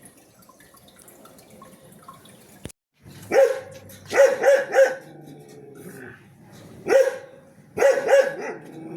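A dog barking, about eight sharp barks in short runs of one to three, starting a few seconds in after a quiet stretch.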